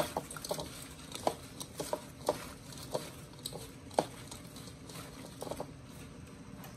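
Toasted bread cubes being tossed by hand in a mixing bowl: irregular dry clicks and taps as the oil-coated toast pieces knock against each other and the bowl.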